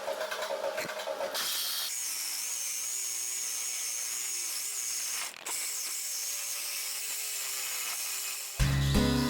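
A small high-speed power tool cutting out rotted-through sheet metal, running with a steady high whine that cuts out briefly about five seconds in. Loud music starts near the end.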